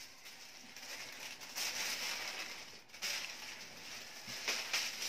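Thin Japanese tissue paper of a handmade kite rustling and crinkling irregularly as the kite is handled and lifted.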